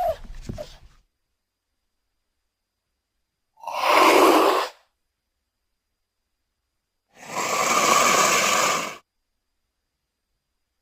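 Cougar giving two breathy, unpitched hisses separated by silence, the first about a second long and the second about two seconds long. A previous call fades out in the first second.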